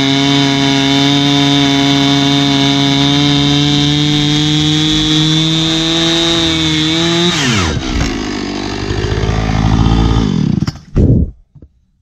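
Husqvarna 455 Rancher two-stroke chainsaw, mounted in an Alaskan chainsaw mill, running at full throttle while ripping a wooden beam lengthwise. About seven seconds in, the throttle is released and the engine note falls steeply. The saw runs low for a few seconds and then stops about eleven seconds in.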